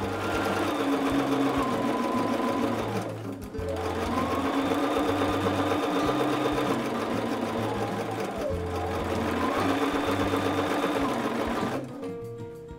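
Bernina electric sewing machine stitching steadily through two layers of cotton, pausing briefly twice and slowing near the end, with background music underneath.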